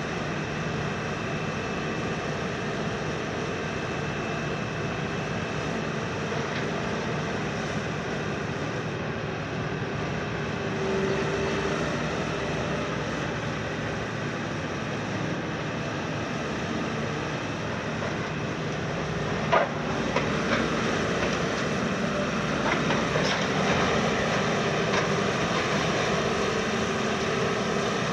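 Long-front demolition excavator (KMC 380 S-6, 210 kW) running under load, its diesel engine and hydraulics droning steadily with a whine as the high-reach tool works at a building's roof. About two-thirds through comes a sharp crack, followed by several seconds of crunching and clattering debris.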